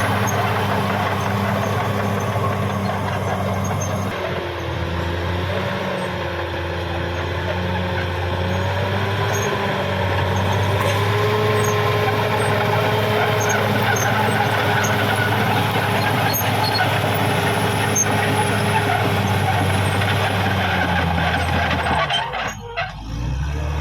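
Caterpillar D6R XL bulldozer's diesel engine running steadily, with a thin whine that wavers up and down in pitch over it for most of the stretch. The sound drops away briefly near the end.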